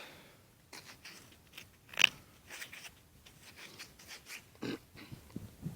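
Scattered crunching and scraping of soil being dug and handled around a buried metal find, with one sharper knock about two seconds in.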